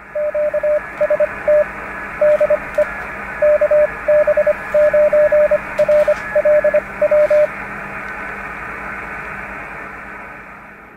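Morse code from a shortwave transceiver: a single steady-pitch tone keyed in dots and dashes over band hiss, sending the general call 'QST DE KB9RLW'. The keying stops about seven and a half seconds in, leaving the hiss, which fades out near the end.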